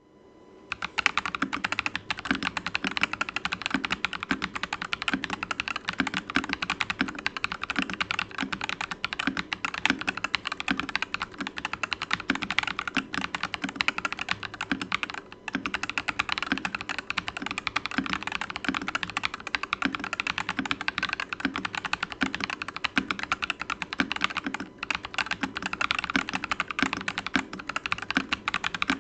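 Continuous fast typing on a Fantech Maxfit81 mechanical keyboard with stock Ajazz Huano Banana switches, lubed stabilizers and PBT Cherry-profile keycaps: a dense stream of keystrokes that starts about a second in and pauses briefly about halfway and again later.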